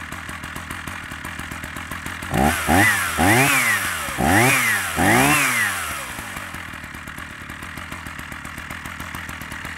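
Two-stroke Husqvarna CD480 chainsaw idling, then blipped up and back down about five times in quick succession before settling back to an even idle. It is running for the first time after a rebuild and is not yet fully tuned.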